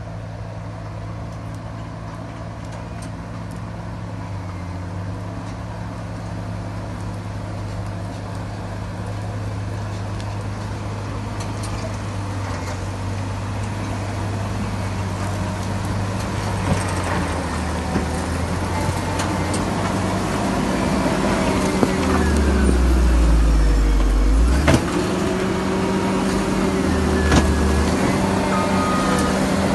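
Caterpillar 140M motor grader's six-cylinder diesel engine running steadily and slowly growing louder. About three-quarters of the way in, its pitch sags with a deep rumble and a sharp click, then climbs back.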